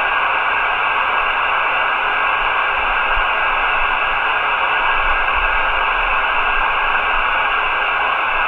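Steady hiss of band noise from a SWAN 250 6-meter tube transceiver's receiver through its speaker, tuned to an empty frequency with no station on it yet. It cuts in suddenly out of silence and holds at a constant level.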